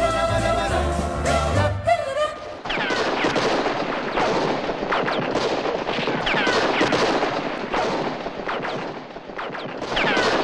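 Music stops about two and a half seconds in and gives way to a gunfight: many gunshots close together, several trailing short falling ricochet whines.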